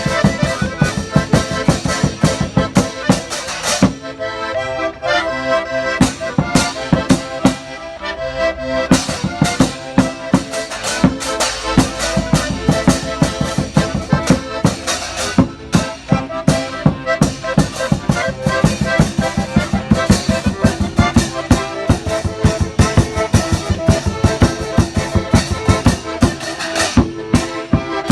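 Accordion playing a lively tune over a fast, steady percussion beat.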